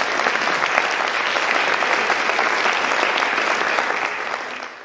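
Audience applauding steadily, a dense patter of many hands clapping, tailing off near the end.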